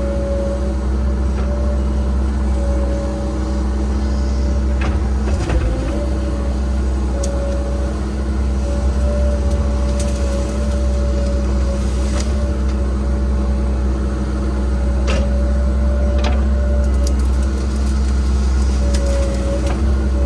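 Cat 306 mini excavator's diesel engine running steadily under work, with a steady whine over the drone and a few sharp knocks spread through.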